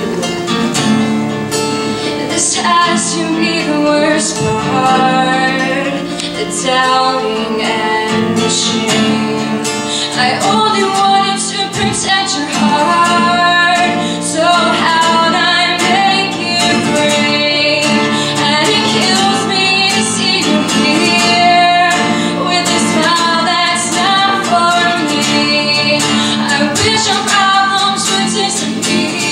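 A woman singing live, accompanying herself on a strummed acoustic guitar.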